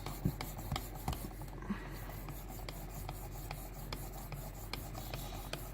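Sharpening stone on a guided rod rubbing along a knife blade's edge: a quiet, steady scratchy rasp with faint ticks running through it.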